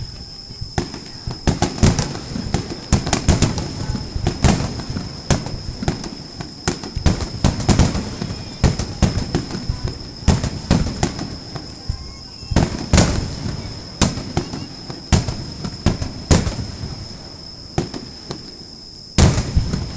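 Fireworks bursting in quick succession: many sharp bangs, often several a second, each with a trailing echo, with a heavy burst near the end. A steady high-pitched whine runs beneath them.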